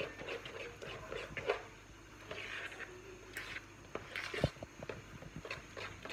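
Kitchen utensil sounds from mixing a thick pancake batter: scattered light clicks and clinks with short scraping passes, and a sharper knock about four and a half seconds in.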